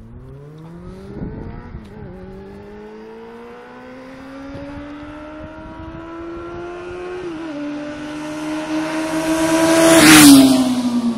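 Triumph Daytona 600 inline-four sports motorcycle, restricted to 33 bhp, accelerating towards the listener. The engine note climbs, drops at two upshifts about 2 and 7 seconds in, and grows louder until the bike passes close about 10 seconds in. The pitch then falls away as it goes by.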